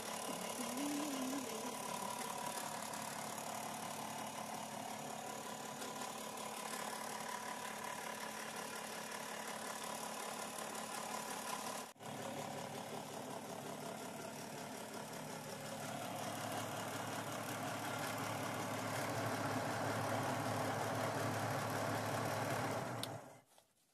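Forge blower running steadily, a continuous mechanical whir with air rushing into the coal fire, growing louder past the middle and cutting off just before the end.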